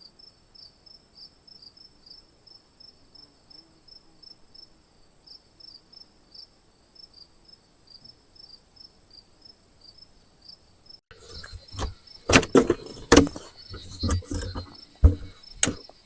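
Night insects calling, a steady high buzz with chirps repeating a few times a second. About eleven seconds in, the buzz stops abruptly and a run of loud knocks and rustles of gear being handled takes over.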